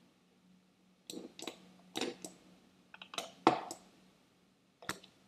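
Scattered clicks of a computer mouse and keyboard, about seven in all at irregular intervals, over a faint steady low hum.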